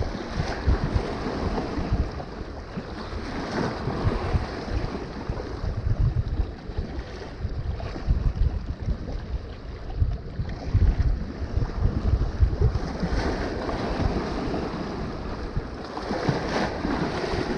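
Wind buffeting the microphone in gusts, with small waves washing and splashing against shoreline rocks.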